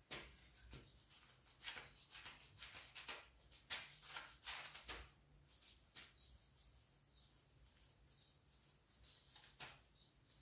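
Faint soft taps and rustles of fingertips pressing into glazed pide dough on a parchment-lined baking tray, many in quick succession over the first five seconds, then only a few.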